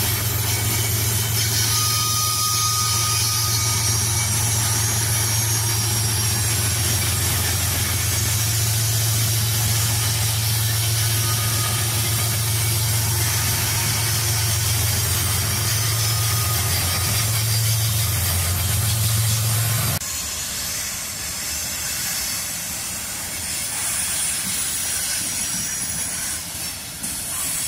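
Freight train passing: a Kansas City Southern diesel locomotive's engine running with a steady low drone as it goes by. After a sudden cut about twenty seconds in, the drone is gone and freight cars roll past with a steady hiss.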